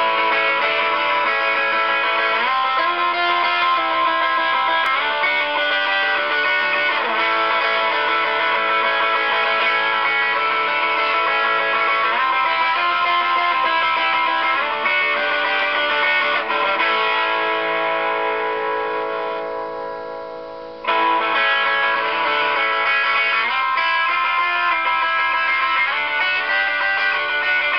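Looped recording of an overdriven electric guitar playing chords, fed through a volume pot with a high-pass (treble-bleed) capacitor at full volume, where the capacitor leaves the tone unchanged. About two-thirds through, one chord is held and slowly fades, then the part starts again abruptly.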